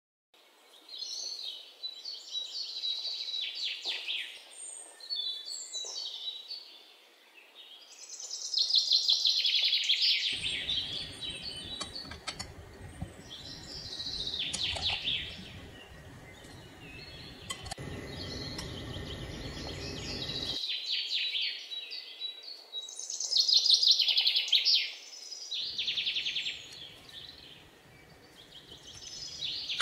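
Birds chirping and singing in repeated bright phrases. A low, steady noise joins abruptly from about ten to twenty seconds in and again near the end.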